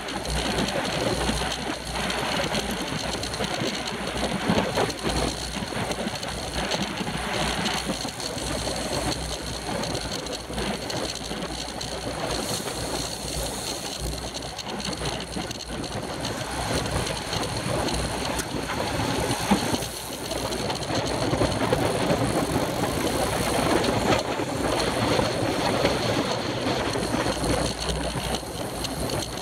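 Wind rushing and buffeting over a bicycle-mounted camera's microphone as a road bike rides at race speed in a pack, with rolling tyre and road noise underneath.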